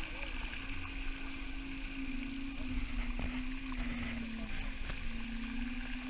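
Water rushing and hissing in the wake of a Seascape 27 sailboat sailing fast, with a steady low hum that wavers slightly in pitch.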